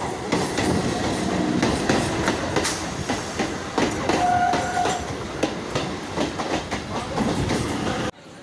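Local passenger train running on the rails, its wheels clacking over the rail joints with a steady rumble; a brief steady tone sounds about four seconds in. The sound cuts off abruptly near the end.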